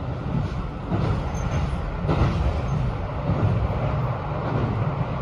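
Running noise inside a JR Hokkaido 721 series electric train: a steady low rumble of wheels on rail, with a brief clack about two seconds in.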